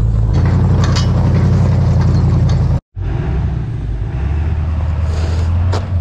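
Truck engine running steadily. It breaks off for an instant about three seconds in, then runs on a little quieter.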